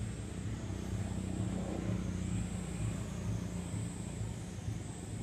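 A steady low motor rumble over outdoor background, with a thin high buzz that swells and fades about every second and a half.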